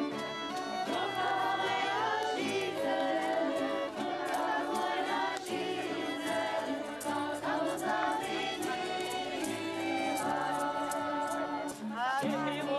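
A group of voices singing together in chorus, holding sustained notes. Near the end the sound changes abruptly to violins playing, with gliding notes.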